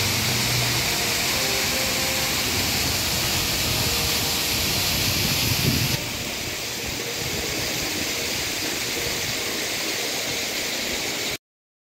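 Water falling down an artificial rockwork waterfall, a steady splashing hiss. About six seconds in it cuts suddenly to a quieter, steady outdoor background noise.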